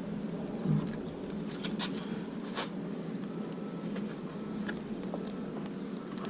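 A few light plastic clicks and handling sounds as headlight bulb sockets are worked out and fitted into a headlight housing, over a steady background hum.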